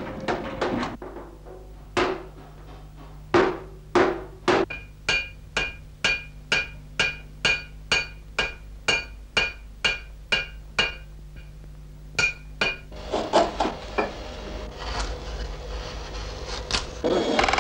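A hand hammer beating a large metal tray: sharp blows that ring, settling into a steady rhythm of about two and a half blows a second, then a few scattered knocks.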